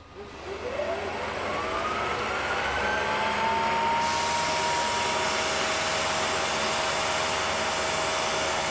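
Bridgeport milling machine's spindle starting up, its whine rising in pitch over the first few seconds, then running steadily. A steady hiss comes in suddenly about four seconds in.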